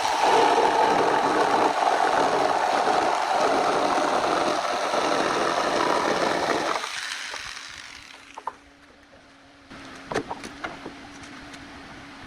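Small electric jigsaw cutting through a hardwood slab, running loud and steady, then dying away about seven seconds in. A few light clicks and knocks follow over a faint steady low hum.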